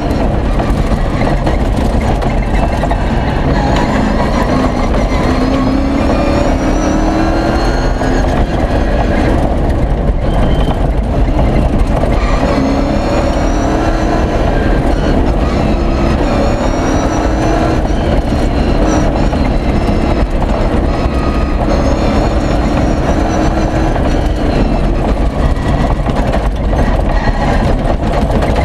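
V8 engine of an off-road racing 4x4 heard from inside the cab at speed on a gravel track, its note rising in pitch several times as the car accelerates. Under it runs a constant loud rumble of tyres on gravel and rattling bodywork.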